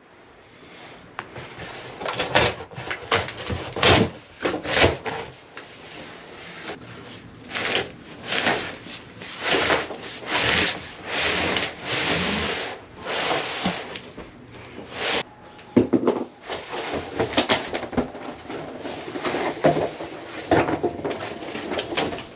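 Cardboard packaging being worked off a shrink-wrapped glass aquarium: irregular bursts of cardboard scraping, rubbing and sliding, with occasional sharp knocks.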